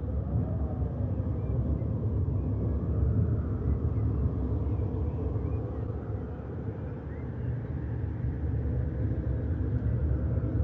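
A steady low rumble that swells and eases slightly, with faint wavering tones above it.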